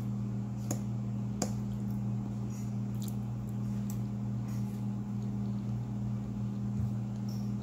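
A steady low hum, with a couple of soft clicks of a metal fork against a plate in the first second or so, then quiet chewing of cake.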